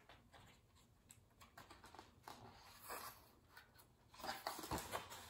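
Faint rustling and light taps of a picture book's paper pages being handled and turned, louder for about a second near the end.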